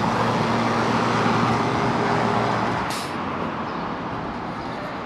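A motor vehicle driving past on the street, its engine and road noise loud for about three seconds and then fading, with a brief hiss about three seconds in.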